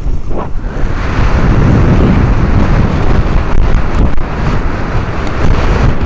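Strong wind buffeting the microphone: a loud, fluctuating low rumble with no steady pitch, which grows heavier about a second in.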